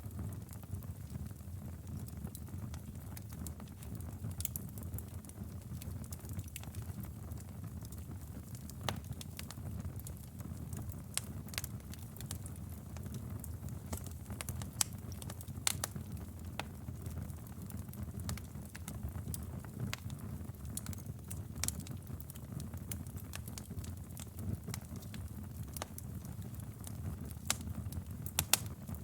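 Wood fire in a fireplace crackling: a steady low rumble of flames with irregular sharp pops and snaps scattered throughout.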